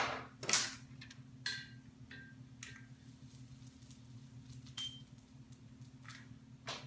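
Quiet hair-crimping handling: two short hissy rustles near the start, then scattered faint clicks and rustles as a hair crimper is worked on a section of hair, over a low steady hum.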